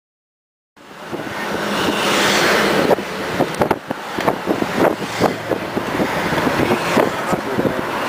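Road and traffic noise heard from a moving car in city traffic, starting suddenly about a second in after silence, with many short crackles and thumps on the microphone.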